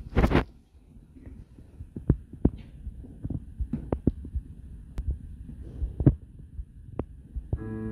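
Low thumps and scattered sharp clicks over a faint rumble, with a brief loud rustle at the very start. Near the end a keyboard starts playing sustained chords, the introduction to the choir's song.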